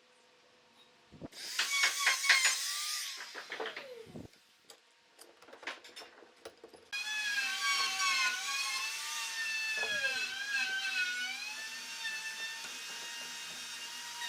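A handheld power tool's motor spins up loudly, then winds down. A few sharp clicks follow. About halfway through it starts again and runs steadily, its whine wavering slightly in speed.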